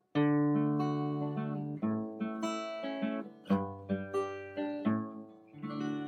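Background music on acoustic guitar: picked notes and chords ringing out one after another.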